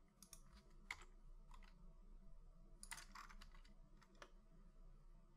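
Faint, scattered clicks of computer keyboard keys and mouse buttons, a handful of sharp ticks with a small cluster about three seconds in.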